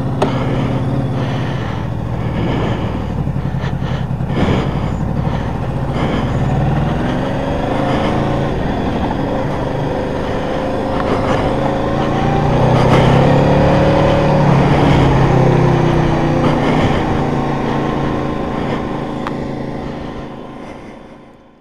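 Honda VFR800's V4 engine pulling away and accelerating at low speed. Its pitch rises and drops back twice as it goes through the gears, recorded through a helmet-camera mic the rider calls rubbish. It fades out near the end.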